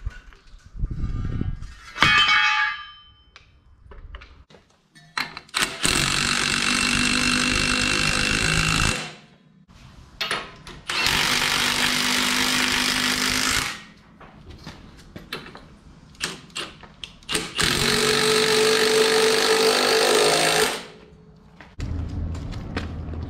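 Impact wrench run in three bursts of about three seconds each, driving bolts home. A ringing metal clank comes about two seconds in.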